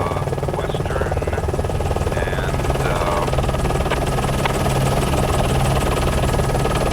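Steady, loud news-helicopter rotor and engine noise, with no change in pitch or level.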